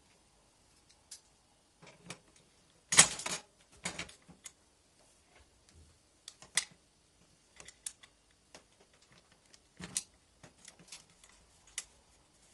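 Scattered light clicks and knocks of metal parts as a fatbike wheel's axle and quick-release lever are handled and fitted at the hub in the dropout. A louder rattling cluster comes about three seconds in.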